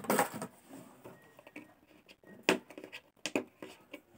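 Cardboard packaging being handled as a headphone box is pulled out of a shipping carton: rustling and scraping, with a few sharp knocks, one right at the start, one about two and a half seconds in and another just after.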